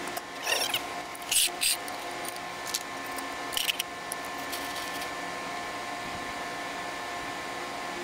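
A few short rustling, scraping bursts from gloved hands handling the motor's wires, over a steady hum of several pitches.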